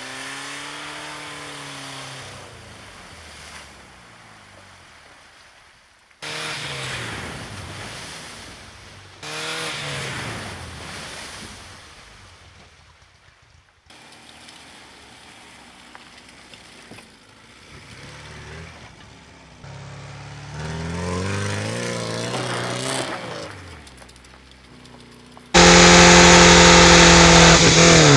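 Small car engine of an old Ford Fiesta driven hard on a muddy dirt track, its pitch rising and falling again and again as it revs and changes speed, in several clips that cut in and out abruptly. Near the end the engine is suddenly much louder and closer, heard from a camera mounted by the front wheel.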